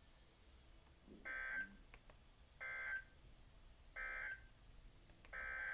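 Emergency Alert System SAME data tones: three short, harsh digital bursts about a second apart, the end-of-message signal that closes the flash flood warning. Near the end a longer burst begins: the data header of a second alert.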